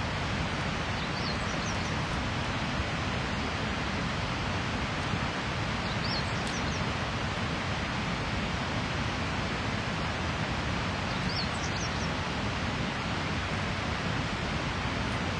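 Steady rushing outdoor background noise with a few faint, short, high bird chirps, a handful of times.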